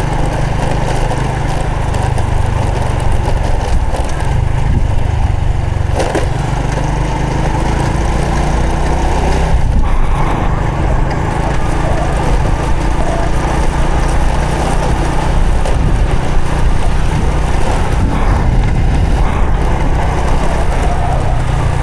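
Honda Supra X 125 FI's single-cylinder four-stroke engine running under way on a ride, its note rising and falling with the throttle.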